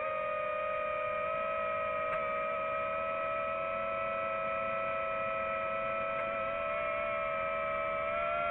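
Quadcopter drone's electric motors and propellers whining steadily, heard through the drone's own onboard camera, with the pitch edging up slightly near the end.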